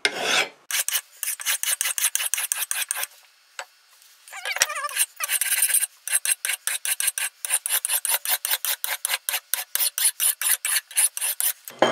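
A fine bastard file is pushed in quick, short strokes across the steel edge of a hatchet, sharpening its bevel. It rasps about five strokes a second, with a break of about a second near the middle.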